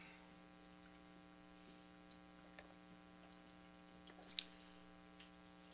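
Near silence: room tone with a steady electrical mains hum, broken by a few faint clicks and one sharper click about four and a half seconds in.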